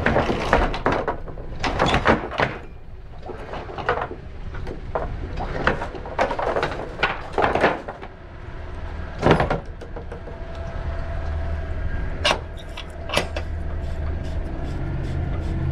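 Anchor chain clanking as the anchor is hauled up onto a catamaran's bow roller, with irregular metal knocks and a loud clunk about nine seconds in. Near the end come two sharp metallic clicks as the chain is made fast at the bow.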